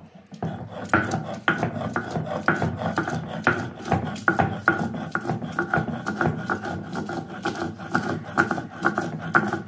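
Stone roller of a sil-pata grinding stone rolled back and forth over boiled greens, grinding them to a paste: a rasping stone-on-stone rub, about two strokes a second.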